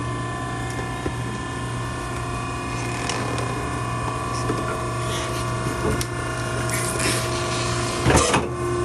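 Maren hydraulic baler running with a steady hum from its motor and pump, with scattered cracks as the ram crushes the load and a louder crunch about eight seconds in.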